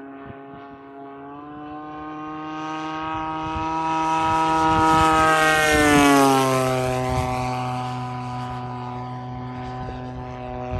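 Large-scale RC A6M Zero with a DLE 55 single-cylinder two-stroke gas engine flying past. The engine note grows louder, drops in pitch as the plane passes about six seconds in, then fades away.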